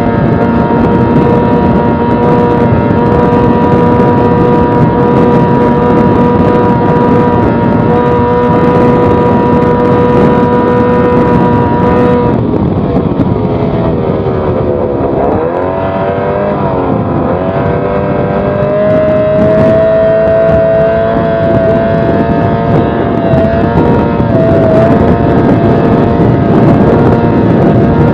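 Yamaha 20 hp outboard motor running flat out on a racing boat, then throttled back about twelve seconds in as the boat rounds a turn buoy; the pitch drops and wavers through the turn, then climbs back to a steady high note as the boat accelerates away.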